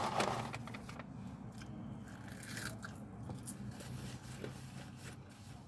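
Chewing a mouthful of hamburger close to the microphone, with a short rustle right at the start.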